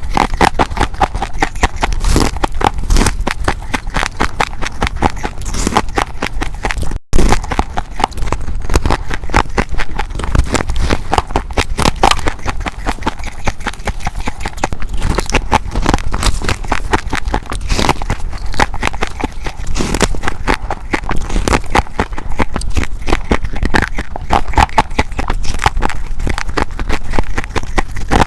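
Close-up crunching of ice being bitten and chewed: a dense, irregular run of crackling crunches, broken by an instant's silence about seven seconds in.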